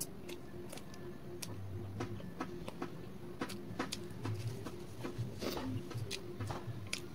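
Close-up eating sounds: irregular small clicks of chewing and of fingers tearing paratha on a steel plate.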